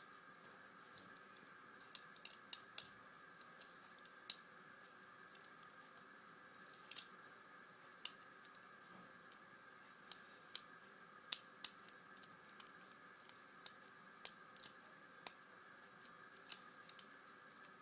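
Lego bricks clicking and snapping as they are handled and pressed onto the model: small sharp clicks at irregular intervals over a faint steady hum.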